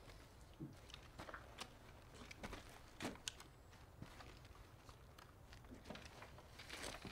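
Faint footsteps and scattered small knocks and rustles in a quiet room as a man moves about and sits down, with a slightly louder rustle near the end.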